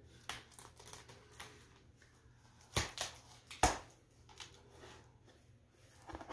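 Cardboard record mailer being opened and handled: scattered scrapes, rustles and knocks of cardboard packing, with two louder knocks about three seconds in.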